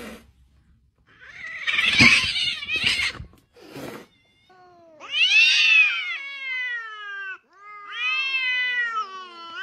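Domestic cats caterwauling in a standoff: two long, wavering yowls, each sliding down in pitch, the threat call of cats squaring off. Before them comes a short burst of rough noise.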